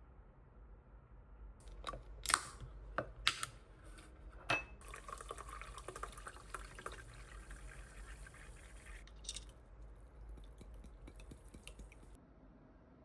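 A few sharp clinks of glass or dishes, then water running or being poured for about four and a half seconds, with one more clink just after it stops.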